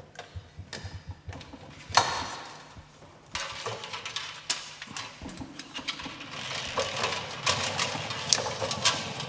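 Motorised 35 mm film rewind bench: a sharp clack about two seconds in, then the rewind motor and reel running, with many quick clicks from the film and reel, growing louder toward the end.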